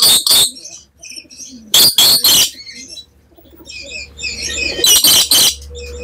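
Black lory (a parrot) calling with short, loud screeches in three clusters of two or three: at the start, about two seconds in, and about five seconds in. Softer, high chattering comes in between.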